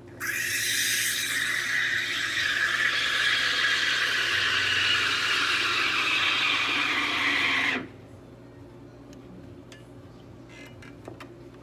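Espresso machine steam wand hissing into milk in a stainless steel pitcher as the milk is steamed. The hiss lasts about seven and a half seconds and cuts off suddenly when the steam is shut off.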